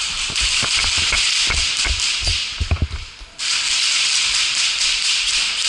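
Loud steady rustling hiss of gear or clothing rubbing against a worn camera's microphone, with scattered knocks and low thumps through the first three seconds. The hiss cuts out briefly about three seconds in and then comes back.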